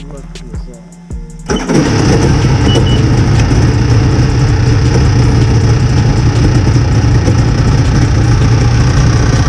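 Yamaha GP1300R WaveRunner's freshly rebuilt 1300 cc two-stroke triple catching about one and a half seconds in, then running loud and steady.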